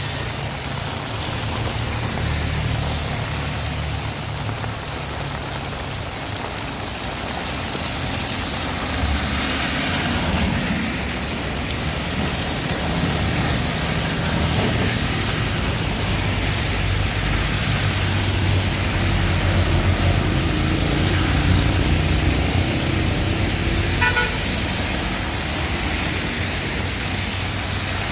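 Heavy rain falling steadily, with motor vehicles going by, their engine rumble rising and fading, and a short horn toot near the end.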